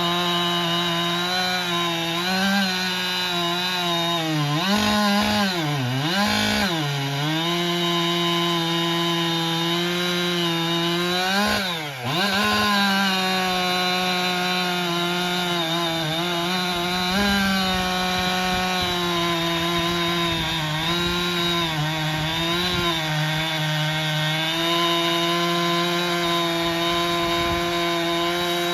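Husqvarna 585 XP two-stroke chainsaw running at full throttle as its 28-inch bar cuts through hard oak, with a little chain chatter in the cut. The engine note holds steady, sagging and recovering a few times, around five to seven seconds in and again at about twelve seconds.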